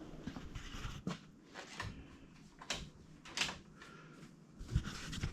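A handful of light, irregular knocks and clicks, about six spread over a few seconds, with a slightly louder pair near the end.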